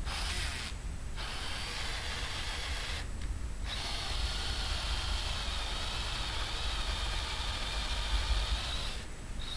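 Drill turning a step drill bit to enlarge a hole in a metal bracket, running steadily with short breaks about a second in, around three seconds in and near the end.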